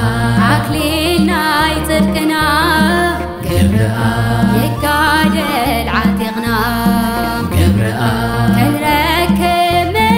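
Tigrinya Orthodox hymn (mezmur): a woman singing a wavering, ornamented melody over instrumental backing with a steady, repeating bass pattern.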